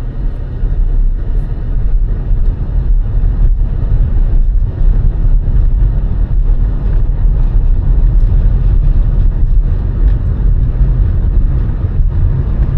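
A car driving, giving a steady low rumble of road and engine noise.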